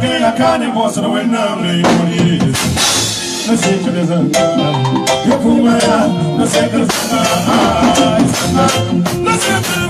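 Live band music: electric guitar and drum kit playing a steady groove, with a male singer's voice at the microphone.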